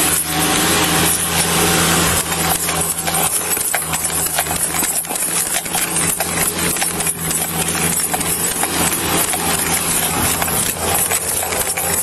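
Footsteps of a person moving fast over rough dirt, with the body-worn camera knocking and jostling at irregular intervals, over a steady low engine hum.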